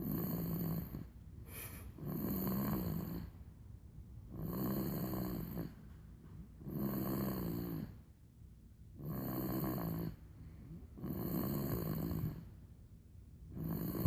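A three-month-old baby snoring loudly, with seven regular snores about every two seconds, each about a second long with a low hum.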